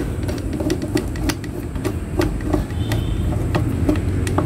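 Irregular light metal clicks and taps as parts around the needle and presser foot of a Yamato sewing machine are handled and fitted by hand, over a steady low engine-like rumble.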